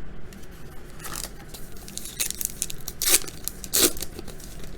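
Topps Archives baseball cards and their pack being handled, giving short papery swishes and scrapes. Two louder ones come about three and almost four seconds in.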